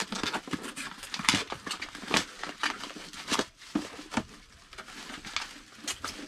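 Packaging being unwrapped and handled: irregular crinkling, rustling and sharp crackles and taps of wrapping and box material as a mystery box is unpacked.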